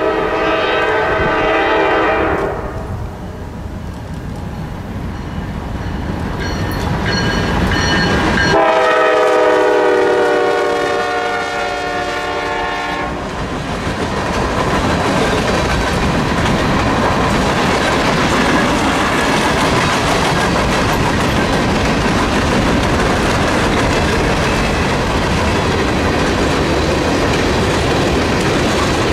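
Norfolk Southern freight train's horn blowing two long blasts, the second one longer, as the locomotive comes up. Then the freight cars roll past with a steady rumble and wheel clickety-clack over the rail joints.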